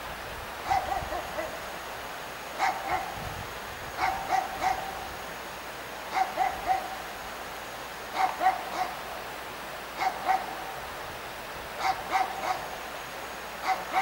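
A dog barking repeatedly, in short runs of one to three barks every second or two, over a steady background noise.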